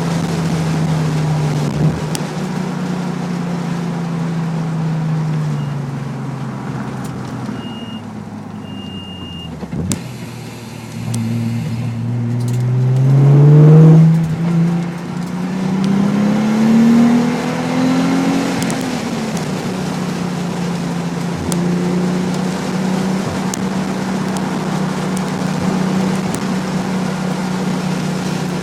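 Nissan 300ZX's V6 with an aftermarket Specialty Z exhaust on track. The engine note drops away off-throttle, then climbs hard under acceleration to its loudest about halfway through. After a further rise through the gears it settles into a steady drone at part throttle.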